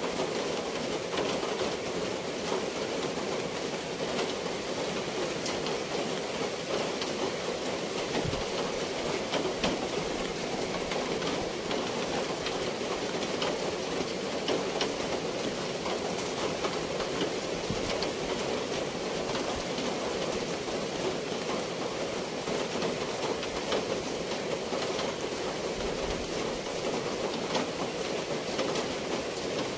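Steady rain falling, an even rushing hiss peppered with the light ticks of drops.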